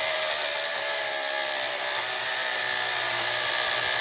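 Carrera slot car's motor spinning the rear wheel while a hand-held blade shaves its plastic rim, truing the wheel: a steady whir and scraping hiss of the cut.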